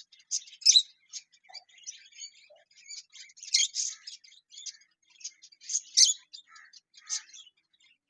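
Lovebirds chirping: a steady run of short, sharp, high-pitched chirps at irregular intervals, with louder calls in the middle and about six seconds in.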